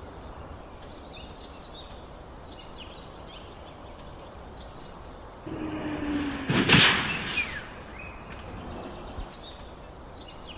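Small birds chirping repeatedly over steady outdoor road noise. About five and a half seconds in, a truck passes through the intersection: the rush rises to a loud peak with a brief sharp knock near seven seconds, then fades.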